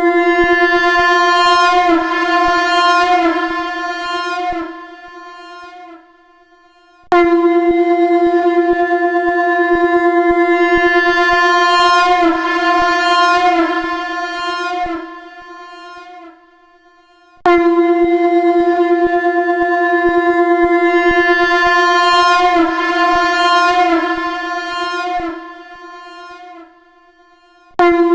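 Shankh (conch shell) blown on a steady F note, each blast holding about five seconds, wavering and fading toward its end before a short break. The same blast repeats about every ten seconds, starting again about seven and seventeen seconds in and once more at the very end.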